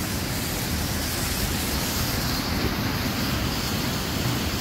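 Steady rushing of flowing water, an even, unbroken hiss.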